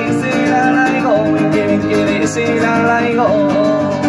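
Live band music through loudspeakers: acoustic guitar strummed over sustained keyboard backing, playing without a break.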